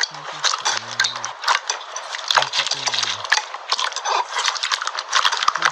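Slime being squeezed and worked, giving dense, irregular crackling and popping clicks, with a low voice-like sound at times underneath.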